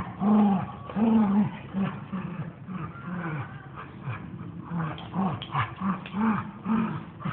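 Dogs play-fighting: a run of short, pitched growls and whines, one every half second to a second.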